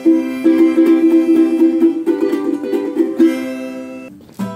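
Ukulele strummed in a quick rhythm while a harmonica in a neck rack holds long notes over it.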